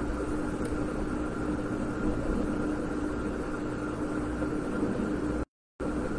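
Steady background hum and hiss with a constant tone. It cuts out completely for about a third of a second near the end.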